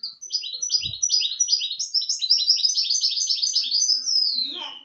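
Goldfinch × canary hybrid (a 'mule' or 'bastard' finch) singing: a fast, unbroken run of repeated high chirping notes, ending near the end in a long falling note. A brief low thump sounds about a second in.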